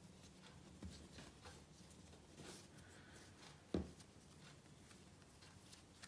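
Faint rubbing and light pats of hands rolling and stretching soft bread dough on a countertop, with one sharp knock a little under four seconds in.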